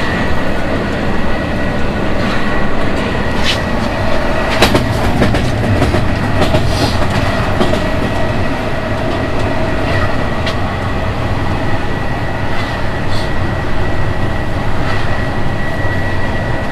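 KZ8A electric freight locomotive running at speed, heard from inside its cab: a steady dense rumble with a constant high whine. Occasional sharp clicks from the wheels on the rails come through, a few of them a few seconds apart.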